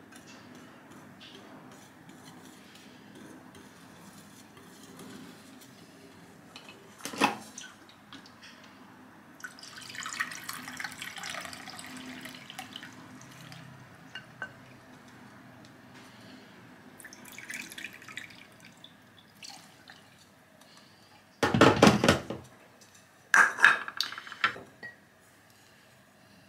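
Bread dough being started by hand in a glass mixing bowl: a whisk scraping faintly through flour, a sharp clink about seven seconds in, and water poured from a kettle into a measuring cup and onto the flour twice. Near the end come loud knocks and clatter as the whisk and cups are set down.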